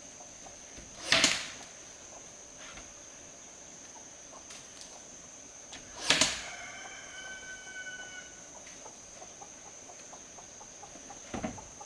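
A rooster crowing once, a long held call of about two seconds just after the middle. Two short loud noisy sounds come before it, one about a second in and one just before the crow. A steady high-pitched tone hums underneath throughout.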